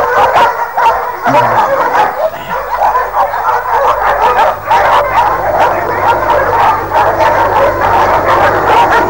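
A pack of cartoon wolves barking and yelping, many voices overlapping without a break. A low steady rumble sets in a couple of seconds in.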